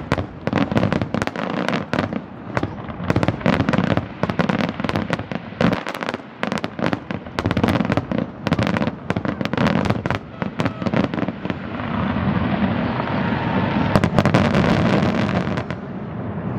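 Fireworks going off in a rapid, irregular barrage of bangs and crackles, ending in a dense stretch of crackling that stops abruptly about a second before the end.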